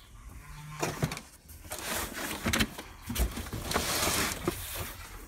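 Cardboard packing being handled and slid around inside a shipping box: scraping and rustling of cardboard on cardboard, with a few light knocks.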